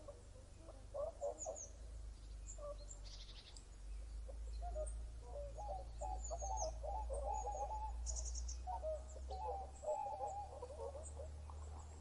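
Birds calling: a run of low, wavering calls, busiest in the middle, with a few short high chirps, over a steady low hum.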